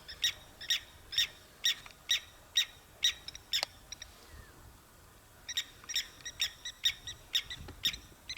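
A bird calling over and over in short, sharp notes, two to three a second, falling quiet for about a second and a half midway before starting again.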